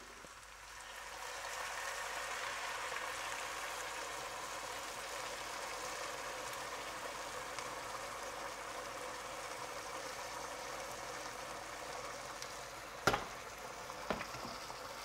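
Boiling water poured from a kettle into a hot pot of fried quince, chicken and pomegranate paste, then the stew bubbling steadily at the boil. Two sharp knocks near the end.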